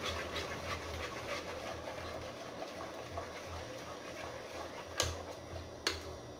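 A ladle stirring thick melted soap mixture in a pot, with soft scraping and small clicks against the pot, and two sharper knocks near the end.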